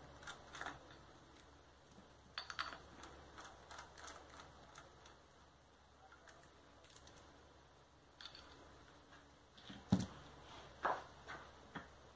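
Scattered light clicks and taps of a hand tool working on the metal housing of a Honda Civic electric power steering rack during disassembly, with one louder knock about ten seconds in.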